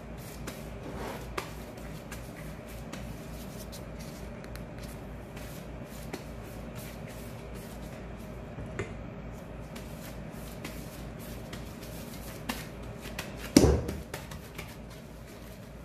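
Plastic-gloved hands handling a ball of bread dough and a ceramic baking dish: soft rustling and small taps, with one loud knock near the end, over a steady low hum.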